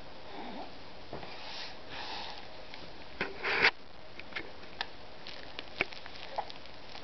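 Young baby's mouth and breathing noises: soft snuffling breaths and small wet smacking clicks as it sucks on its hands, with one louder breathy snuffle about three and a half seconds in.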